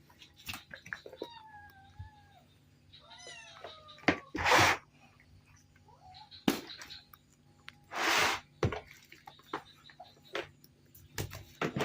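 A cat meowing twice, in drawn-out, wavering calls, with three short, loud rushing noise bursts between them.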